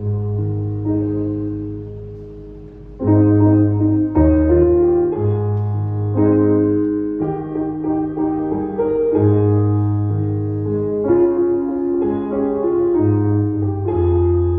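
Keyboard playing a hymn introduction in slow, held chords over a bass line. It is softer at first and grows louder about three seconds in.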